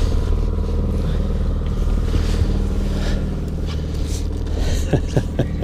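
Boat's outboard motor running steadily at trolling speed, a low hum, with rustling and scraping as the catch is handled.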